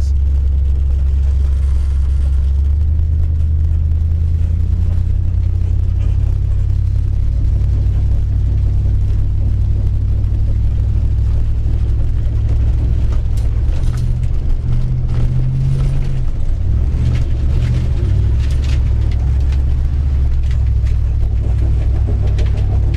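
1964 Dodge Custom 880's big-block V8 running with a low, steady exhaust note. In the second half the engine speed rises and falls several times.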